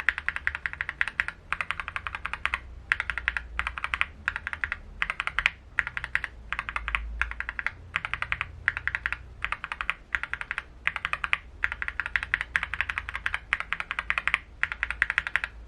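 Typing on a mechanical keyboard fitted with Akko linear switches: rapid keystroke clicks in short runs with brief pauses between them.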